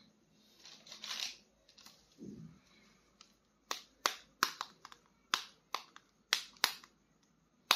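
Sharp plastic clicks, about nine in a row at roughly two a second in the second half, from a plastic action figure being handled and its parts clicked, preceded by a soft rustle and a dull bump.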